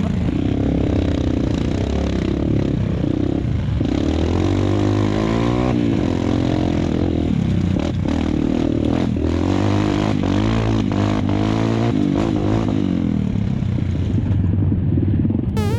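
Trail motorcycle engine revving up and down as it is ridden off-road, with repeated knocks and clatter from the bike over rough ground.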